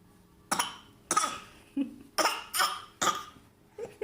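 A run of short, forced coughs, about two a second, some weaker than others: put-on coughing that the listener calls fake.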